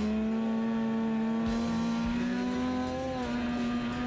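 Polaris snowmobile engine running at speed, its pitch climbing slowly as it accelerates, easing off briefly about three seconds in.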